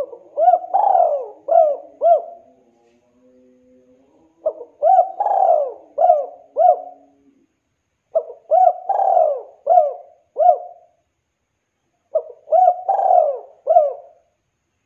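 Spotted dove cooing: four phrases of its song about four seconds apart, each a few short coos around one longer, drawn-out falling coo.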